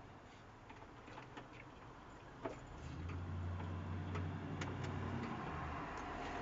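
Scattered light clicks and ticks from hand tools and hardware being handled during car work. About three seconds in, a low steady hum joins them.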